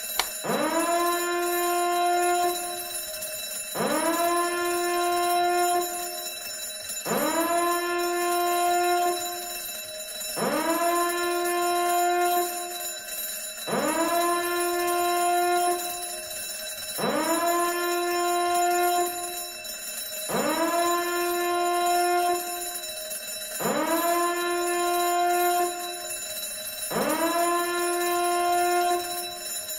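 An alarm-like tone repeating about every three seconds. Each one swoops quickly up in pitch, holds steady for about two seconds, then drops away, much like a slow siren.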